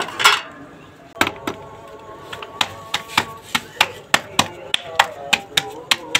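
Roti dough being patted flat between the palms: sharp slaps about four a second, starting a couple of seconds in, after a brief louder noise right at the start. Faint background music with held notes runs underneath.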